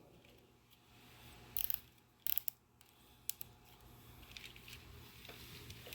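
Corrugated plastic wire loom being fitted over bike wiring: two short plastic rasps and a single click, then a faint rustle near the end.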